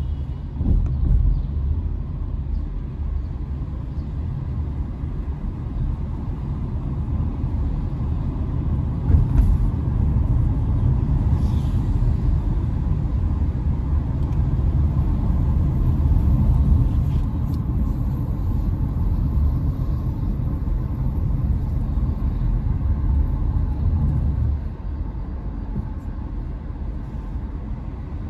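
Car driving along a road: a steady low rumble of engine and tyre noise, easing a little near the end.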